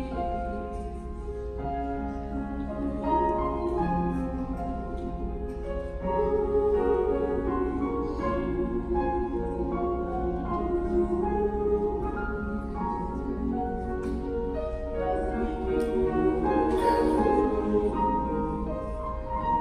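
High-school mixed choir singing held chords with grand piano accompaniment.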